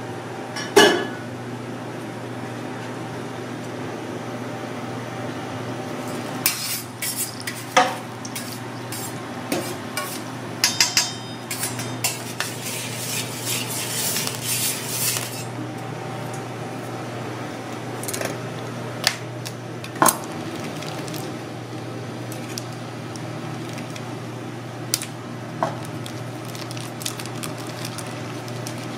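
Kitchen handling sounds: scattered sharp knocks and clinks of utensils and dishes over a steady low hum, with a few seconds of crinkly rustling in the middle as the plastic vacuum packaging of the pork is handled.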